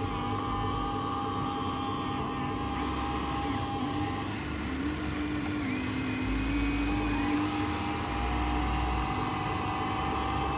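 Small electric motors and gearboxes of remote-control model construction machines whining steadily, their pitch stepping and gliding as the machines work.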